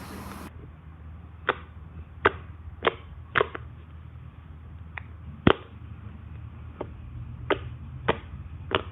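Homemade borax-activated PVA glue slime being squeezed and poked by hand, giving sharp little clicks and pops at irregular intervals, about a dozen of them, the loudest about five and a half seconds in.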